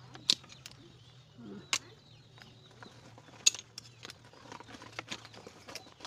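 Metal kitchen tongs clinking against a metal cooking pot and boiled mangrove clam shells as the empty shells are picked out of the broth. The clicks are scattered and sharp, with three louder clinks standing out, the loudest about three and a half seconds in.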